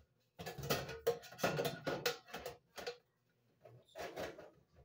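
Thin sheet-metal terminal-block cover rattling and scraping against the range's steel back panel as it is handled into place, in two bouts with a short pause between.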